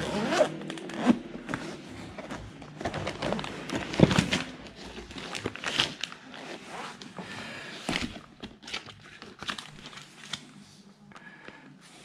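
Zippered carrying case of an Autek iFix 969 car scanner being unzipped and opened, followed by the paper user manual rustling and crinkling as it is handled. A sharp knock about four seconds in is the loudest sound.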